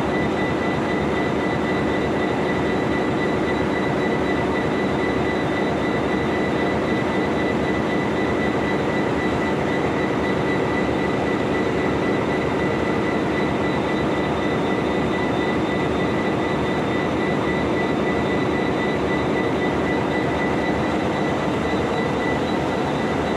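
A stationary diesel train's engine idling steadily, a loud even rumble with a constant high whine over it.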